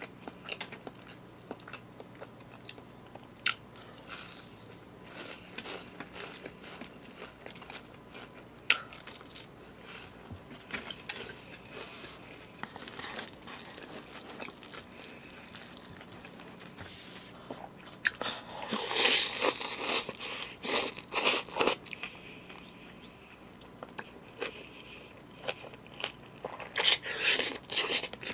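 Close-up eating sounds: a person biting and chewing crisp fried pork cutlet (donkatsu) and bibimbap, with occasional sharp clicks. Louder stretches of crunching come twice in the last third.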